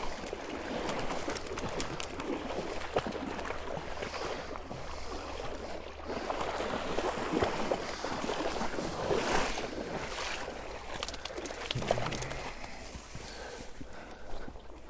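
Uneven sloshing and splashing of river water as a person and a dog wade and swim through the shallows along the bank. It eases off near the end.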